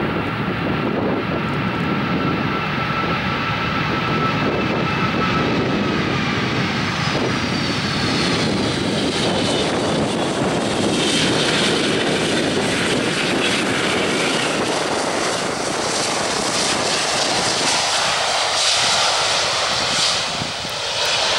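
Boeing 757 twin turbofan jet engines on landing: a steady, loud rumble with a faint whine that slides down in pitch over the first ten seconds. From about ten seconds in, a brighter hissing rush rises as the jet rolls out along the runway.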